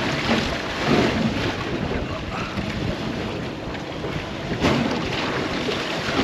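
Wind buffeting the microphone on a small boat at sea in stormy weather: a steady, rough rush that swells and eases a little.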